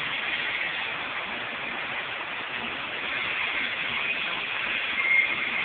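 Steady hissing background noise of a welding shop, with a short high tone about five seconds in.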